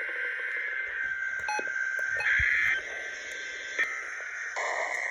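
NOAA Weather Radio broadcast on a receiver: hissing static with a steady high electronic tone, and a louder, brighter burst of tone about two seconds in.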